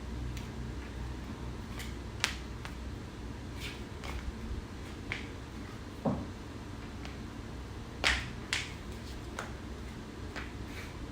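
Jelly flip-flop slapping and snapping against a bare foot: a handful of sharp slaps and clicks at irregular intervals, with a short falling rubbery squeak about six seconds in, over a steady low hum.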